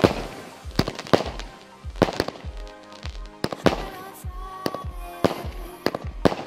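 Fireworks display: aerial shells bursting in sharp bangs about every second or so, over music with a steady beat.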